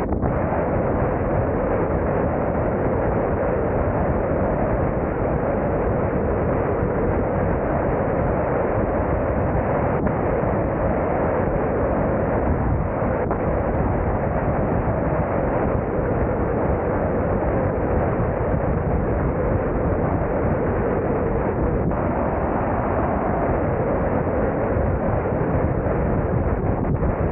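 Steady rush of wind on the microphone of a moving car's camera, over the car's engine and tyre noise while driving at a constant speed.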